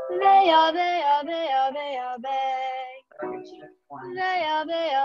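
A girl singing a vocal warm-up exercise over a video call: a run of sung notes stepping downward, then a second descending phrase after a short break about three seconds in.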